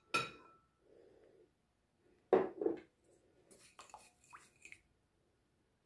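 Wooden spoon stirring oil and spices in a glass mixing bowl: scattered short scrapes and taps against the glass, one with a rising squeak. A glass clinks at the start, and two louder knocks come about two seconds in.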